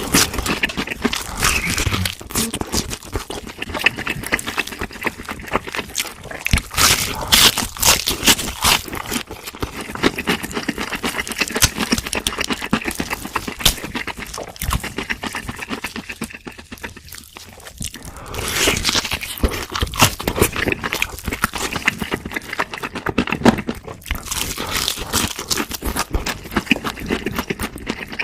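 Close-miked chewing of crunchy fried food: a dense run of crisp crunches and crackles from bites and chewing, with a short lull a little past halfway.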